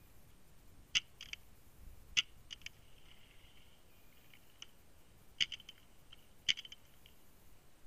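Paintball markers firing in quick bursts, heard as short clusters of two to four sharp pops that come about five times.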